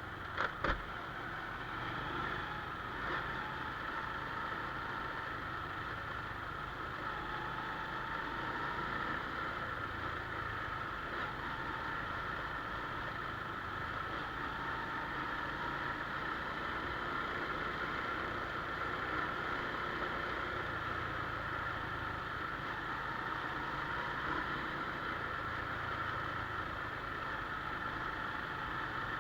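An engine running steadily, with two sharp clicks just after the start.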